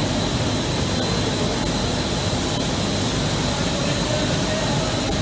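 Textile mill machinery running, around a continuous bleaching range: a steady, loud mechanical noise with a thin, high whine held on one pitch.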